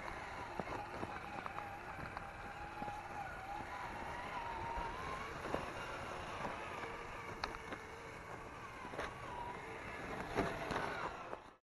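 Traxxas TRX-4 RC crawler's electric motor and gear drivetrain whining as it drives through snow, the pitch rising and falling with the throttle, with scattered clicks and knocks. The sound cuts off suddenly near the end.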